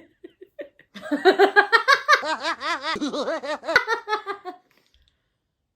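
A woman laughing hard, a quick run of high-pitched ha-ha pulses starting about a second in, after a few short giggles. It cuts off abruptly shortly before the end.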